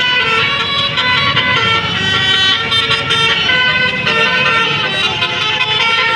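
Basuri multi-trumpet telolet bus horn playing a continuous tune, its notes changing every fraction of a second.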